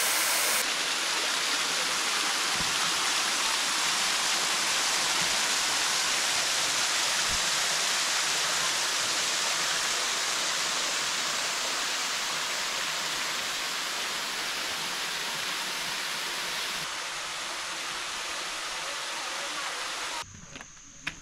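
Small waterfall spilling over sandstone ledges into a pool: a steady rush of falling water that eases slowly and falls away sharply near the end.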